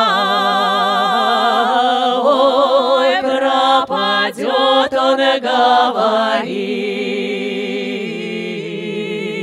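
Female vocal quartet singing a Russian folk song a cappella in harmony, holding long notes with vibrato. Around the middle the voices move through quicker, shorter notes, then settle into a lower, softer held chord.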